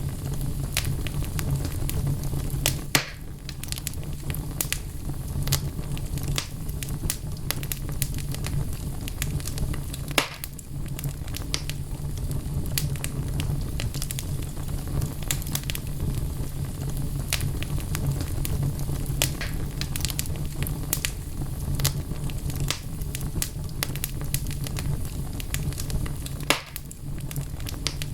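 Wood fire burning in a fireplace: logs crackling with many sharp pops over a steady low rumble of the flames. There are a few louder snaps about three seconds in, about ten seconds in and near the end.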